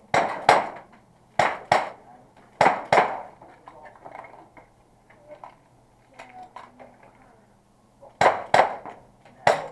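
Airsoft revolver shots fired in quick pairs about a third of a second apart: three pairs at the start, then a pause filled with lighter clicks and clinks, then another pair and a further shot near the end.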